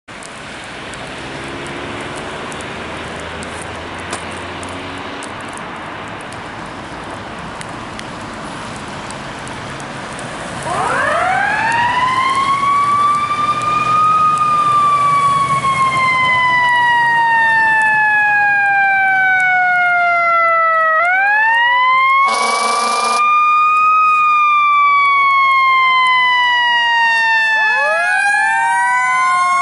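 Passing road traffic, then about ten seconds in an ambulance's electronic siren starts, rising quickly and falling slowly in a repeating wail. A short air horn blast sounds about two-thirds through, and near the end a second siren, from the following tower ladder fire truck, joins in.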